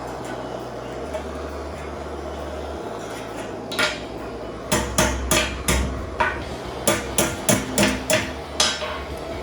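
Hammer tapping on thin steel: about a dozen sharp metallic strikes in quick, uneven succession, starting about four seconds in and stopping shortly before the end, over a steady hiss.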